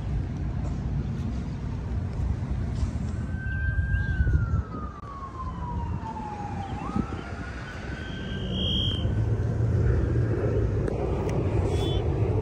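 Emergency-vehicle siren wailing in the background: one tone holds, falls slowly over a few seconds, then rises again, over steady low background noise.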